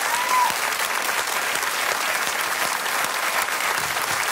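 Studio audience applauding steadily, welcoming a guest onto the stage. There is one short high tone right at the start.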